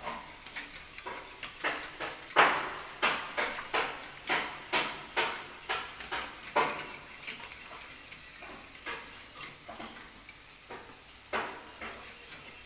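Wire whisk beating a milk béchamel in a metal saucepan, the wires clicking and scraping against the pan in quick strokes about two a second. The strokes thin out to a few in the second half.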